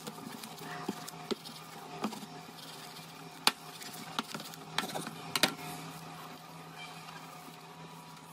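Knife sawing through a cling-film-wrapped sandwich on a plastic cutting board: the plastic wrap crackles and the blade makes a string of sharp clicks, the loudest about three and a half seconds in. A steady low hum runs underneath.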